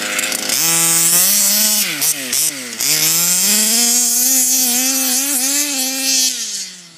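Small two-stroke engine of a petrol Baja-type RC car revving as it drives: the pitch climbs, dips twice, climbs again and holds, then falls away and fades near the end.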